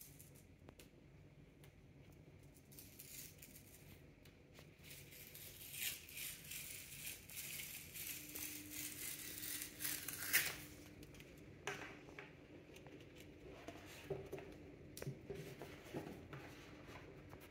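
The tear strip of a cardboard document envelope being pulled off along its edge: a tearing hiss that builds from about three seconds in and stops sharply about ten seconds in. After it, light cardboard rustles and taps as the contents are slid out.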